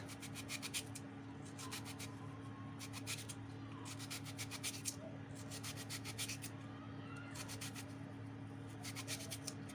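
Kitchen knife slicing an onion into thin rings on a cutting board: quick runs of short cutting strokes, pausing briefly between runs.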